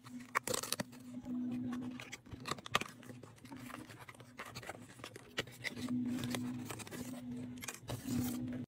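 A paperboard box being opened by hand: cardboard flaps scraping, creasing and rustling in a quick run of crisp clicks and scrapes. A low hum underneath swells louder several times.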